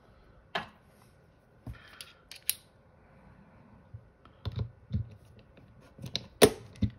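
Real Avid Smart Torq torque screwdriver being seated and turned on a small steel set screw in a pistol optics plate. Scattered small clicks and metal taps, thickening into a run of sharper clicks near the end.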